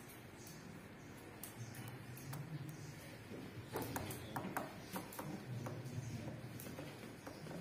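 Cloth bandages being knotted and pulled tight around an arm splint: faint rustling and handling, with a short cluster of light taps and clicks about four seconds in, over a faint low hum.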